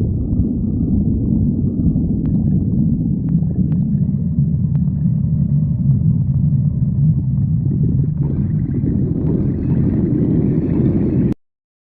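Stomach growling: a continuous low rumbling gurgle with a few faint clicks, cutting off suddenly near the end.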